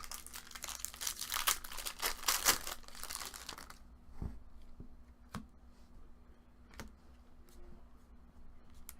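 A foil trading-card pack wrapper crinkling as it is torn open, for about three and a half seconds, followed by scattered light clicks and taps as the cards are handled.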